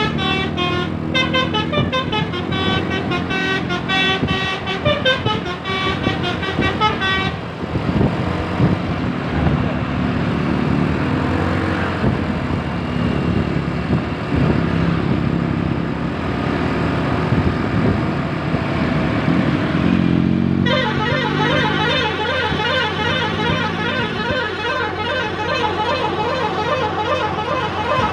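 Basuri V3 multi-tone 'telolet' bus horn playing a tune in quick stepped notes. About seven seconds in it gives way to a loud noisy stretch without clear notes. About twenty seconds in the horn comes back with fast warbling notes.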